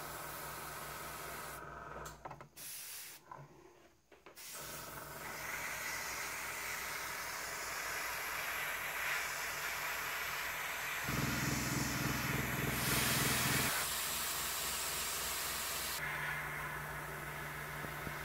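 Airbrush hissing as it sprays thin paint, over the low pulsing hum of an airbrush compressor. The sound drops out briefly a few seconds in, and the hiss is strongest a little past the middle.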